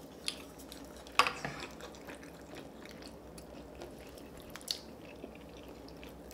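Eating at a table: quiet chewing, with a few sharp clicks of utensils against dishes, the loudest about a second in.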